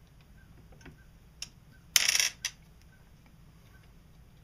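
Small metal parts of a Regner Vincent live-steam locomotive clicking and clinking as they are handled and fitted together, with one louder short clatter about two seconds in.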